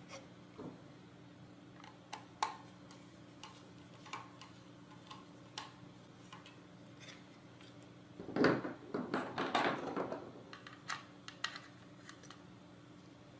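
Small metal bolt and chassis parts being handled by hand: scattered light clicks and taps, then a burst of louder rattling and rubbing about eight seconds in as the robot car chassis is turned over and worked on.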